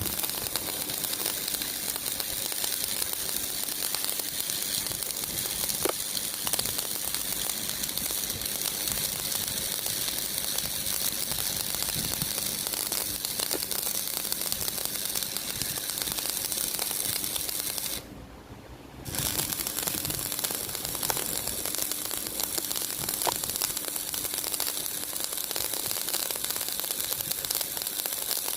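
Electric arc welding: a steady, dense crackling hiss that breaks off for about a second about two-thirds of the way through and then resumes.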